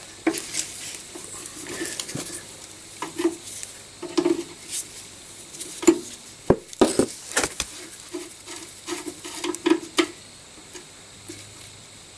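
Spanner working the union nut of a steel brake pipe at a corroded master cylinder: irregular light metal clicks and clinks with short rubbing and creaking sounds, as the rear brake line is undone.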